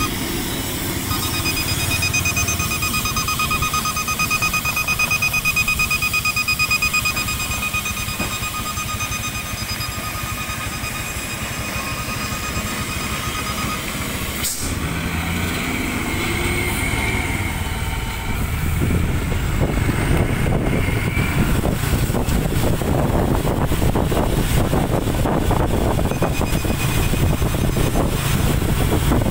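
Vehicle engine and tyre noise while driving behind and alongside heavy trucks on a wet road, a low rumble that grows louder and rougher in the second half. A high, rapidly pulsing electronic tone sounds over it through the first half and briefly again near the end.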